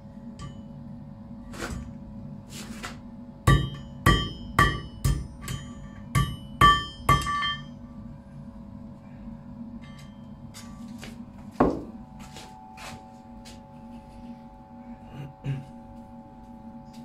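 Blacksmith's hammer striking iron on an anvil: a quick run of about eight ringing blows, roughly two a second, then a single hard blow a few seconds later, followed by a few light clinks. A steady hum runs underneath.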